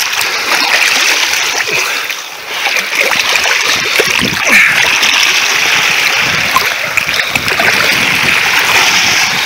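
Shallow surf water splashing and churning in a steady, dense wash.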